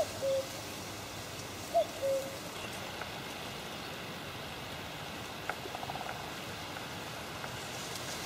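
Quiet lakeside ambience: a steady light hiss of wind and rippling water. Two short low chirps sound in the first two seconds, and a few faint clicks come about five and a half seconds in.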